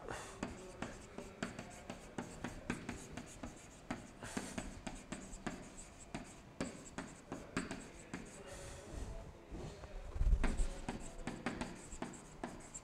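Handwriting with a stylus on an interactive board: quick, irregular taps and scratches of the pen tip as the letters are written, several a second. About ten seconds in there is one louder dull thump.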